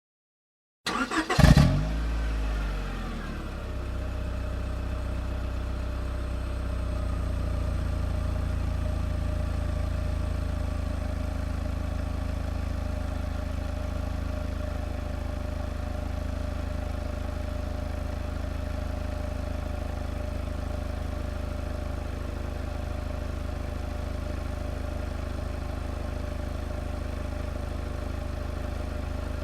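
A car engine starting: a short burst of the starter about a second in, the engine catching with a quick rev whose pitch falls back, then settling into a steady idle.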